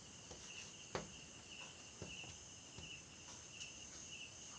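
Faint insect chirping, short high chirps repeating about every half second to second, with a single soft knock about a second in.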